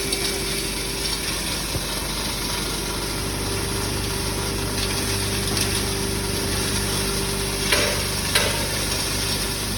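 Herb grinding machine running with a steady mechanical hum and drone. About eight seconds in, the hum drops out, with two sharp knocks a little over half a second apart.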